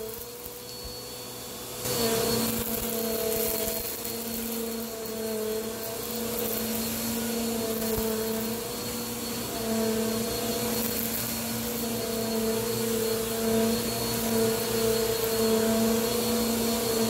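Bissell PowerForce upright vacuum cleaner running on medium-pile carpet: a steady motor hum over airflow hiss, swelling and easing as it is pushed back and forth. It is quieter for about the first two seconds, then louder.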